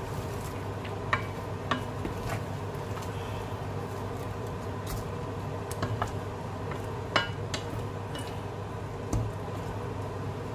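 Wooden spatula stirring chunks of beef and onion in an enamelled cast-iron casserole, with scattered short knocks and scrapes against the pot, over a steady hum.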